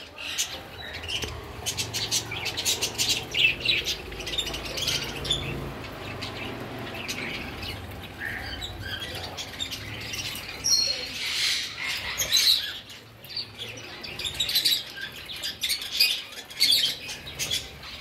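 Pet parrots giving short chirps and clicks, with occasional squawks, on and off.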